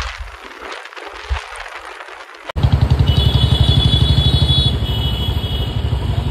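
Road and traffic noise. About two and a half seconds in, it cuts abruptly to a loud vehicle engine running close by, with a fast, steady pulse.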